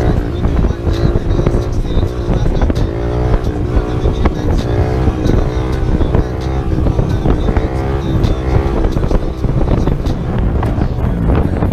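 Small single-cylinder minibike engine pulling hard through the gears, its pitch climbing several times and dropping back at each shift, with wind rushing over the microphone.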